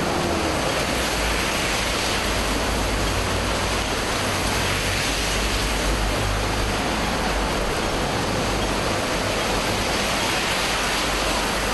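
Steady rushing hiss of rain and splashing water, recorded through a mini shotgun microphone, with a low rumble underneath.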